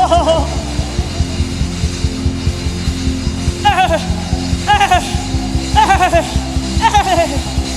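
Instrumental worship music with a steady drum beat under held low chords. About halfway in, four short falling melodic phrases come about once a second.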